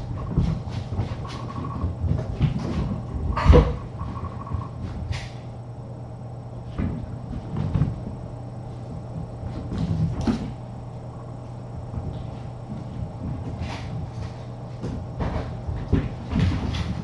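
Irregular knocks, bumps and scuffles from kittens running, jumping and wrestling around a playroom, over a steady low hum; the loudest knock comes about three and a half seconds in.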